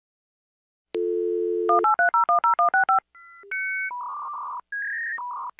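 Telephone dial tone, then about ten rapid touch-tone (DTMF) digits being dialled, followed by a run of shifting electronic beeps and short hissy bursts like a dial-up modem handshaking.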